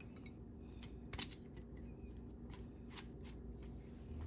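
Light kitchen handling noises: a few short clicks and taps, the sharpest just at the start and about a second in, over a low steady hum.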